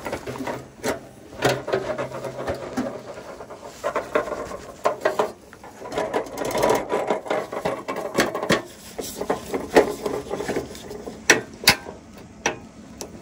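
Mr. Heater Buddy portable propane heater being handled and tilted: plastic knocks, rubbing and rattling of its case and wire grille, with a few sharp clicks about two seconds before the end as its control knob is worked.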